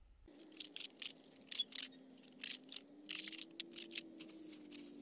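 Cleaver slicing raw pork on a cutting board: a run of short, irregular cutting strokes, with a faint steady hum underneath.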